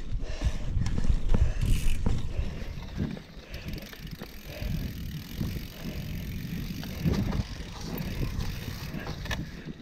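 Mountain bike ridden over a rough forest trail: a rumble of tyres on dirt, with the frame and chain rattling in irregular knocks over the bumps.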